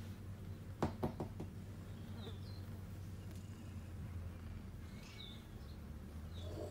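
Faint short bird chirps, one every second or two, over a steady low hum, with a few quick clicks about a second in.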